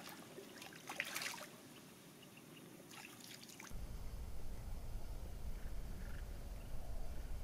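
Shallow pond water splashing around a pike as it is lowered back in by hand and released: two short bursts of splashing and trickling about a second apart. After that comes a steady low rumble with no distinct events.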